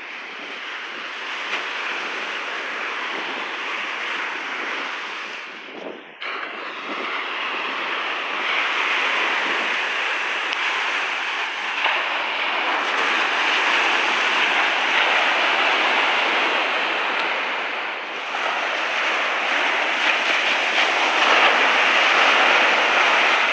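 Lake Michigan surf breaking and washing up a sandy shore: a steady rushing that grows louder about a third of the way in as the waves break close by.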